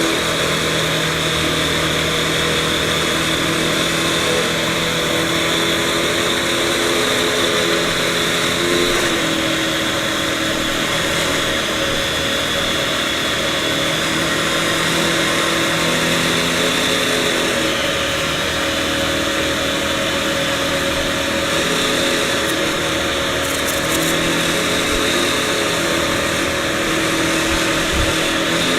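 Vacuum cleaner running steadily: a continuous motor hum and airflow hiss, the hum shifting slightly in pitch a few times.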